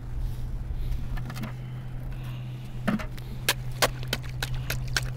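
A wooden stick jabbing and chopping at thin ice skimmed over an ice-fishing hole: a run of sharp knocks and ice clinks, several a second, starting about three seconds in, over a steady low hum.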